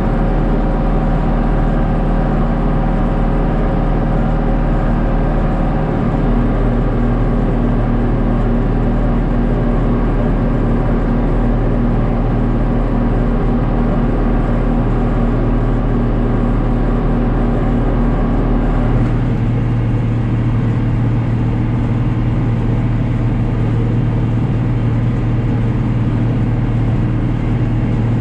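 John Deere 4055 tractor's six-cylinder diesel running steadily under load while it drives a New Holland BC5070 small square baler. The engine note shifts about six seconds in and again a little past the middle.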